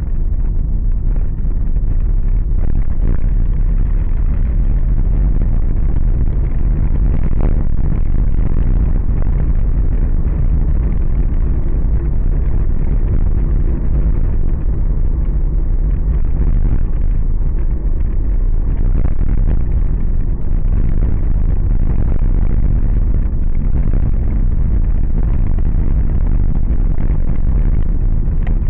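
Car driving along an asphalt street: a steady, heavy low rumble of road and engine noise, with a few brief knocks from bumps.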